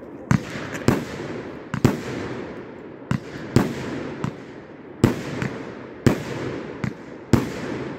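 "Last Chance" consumer firework cake firing its shots into the air: about ten sharp bangs at uneven spacing, with a steady hiss between them.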